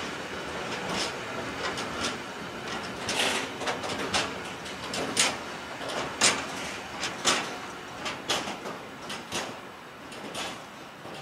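Freight train of empty container flat wagons rolling past, the wheels clattering with sharp knocks about once a second. The sound dies away near the end as the last wagon clears.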